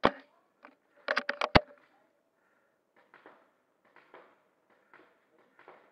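Custom bolt-action airsoft sniper rifle: one sharp shot, then about a second later the bolt worked in a quick run of five clicks, the last loudest. Faint, regular ticking follows.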